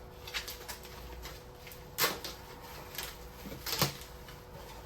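Cardboard Funko Pop boxes being handled and opened: scattered small clicks and rustles, with two sharper knocks, about two seconds in and again just before the four-second mark.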